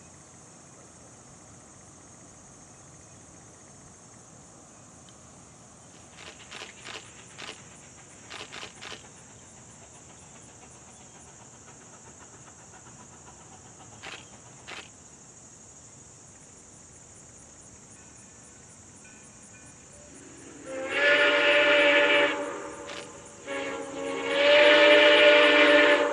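An approaching locomotive's horn sounds a chord in one long blast, then a brief note, then a second long blast near the end, signalling for the grade crossing. A steady high insect drone runs underneath.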